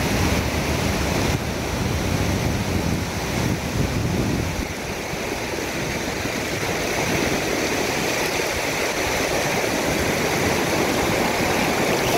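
Steady sea surf breaking on a beach, with wind rumbling on the microphone for the first few seconds.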